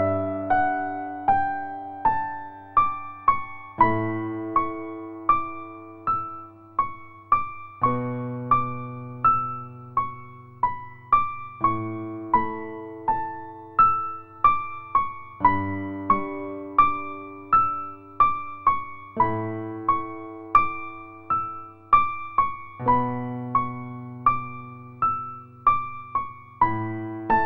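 Background music: a slow, gentle piano piece, single notes about twice a second over low notes that change every four seconds or so.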